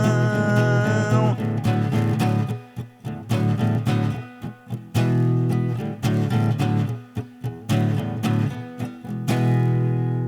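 Guitar with bass playing the instrumental ending of a song: a held chord, then a run of separate plucked notes with short pauses, closing on a final chord about nine seconds in that rings out and fades.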